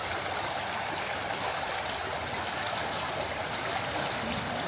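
A mountain stream flowing: a steady rush of running water.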